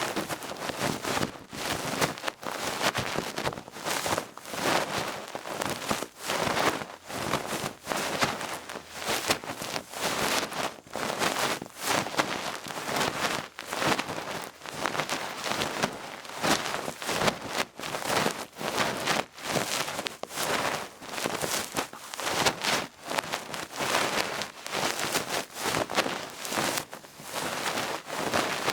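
A duck-feather ear pick brushing and rubbing inside an ear, a dense crackly rustle in repeated strokes, about one to two a second.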